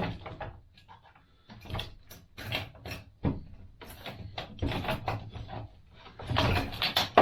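Irregular clanks, knocks and scrapes of metal parts and hand tools as a motorcycle's rear wheel and axle are worked loose, with louder clusters of clatter partway through and near the end.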